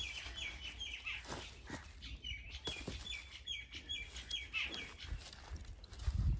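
A bird calling in quick runs of repeated short chirps, twice, over a steady low rumble. A dull low thump comes near the end.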